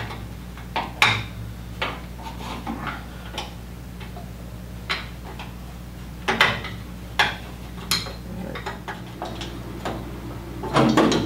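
Irregular metallic clicks and clinks of a wrench working loose the top screw and nut of a 1930s Wayne 60 gas pump's vent, with louder scraping and handling near the end as the vent comes free.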